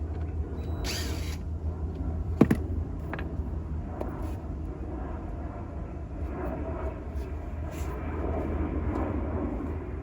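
Hand tools clicking and knocking against car trim while Phillips screws are worked out, with one sharp knock about two and a half seconds in and a short hiss about a second in, over a steady low rumble.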